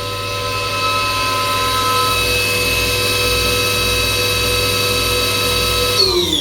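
CNC milling machine spindle running with a steady whine at 6,000 RPM while milling a slot in an aluminium part at final depth. Near the end the whine falls in pitch as the spindle spins down and stops.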